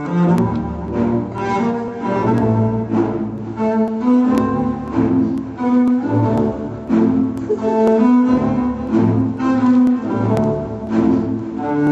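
Instrumental music on a low bowed string instrument playing a melody of separate held notes.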